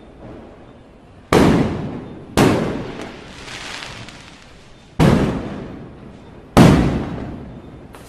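Firecrackers exploding: four loud bangs at uneven intervals, each trailing off in an echo that dies away over a second or so, with faint distant crackling between them.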